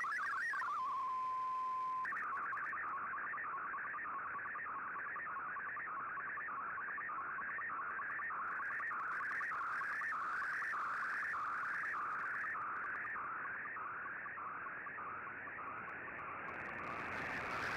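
Shortwave digital-mode picture transmission received over a communications receiver: a steady tone and a brief warble, then from about two seconds in a tone sweeping repeatedly between about 1 and 2 kHz, roughly two sweeps a second, over radio hiss. This is an MFSK picture being sent line by line. A burst of wider hiss comes near the end.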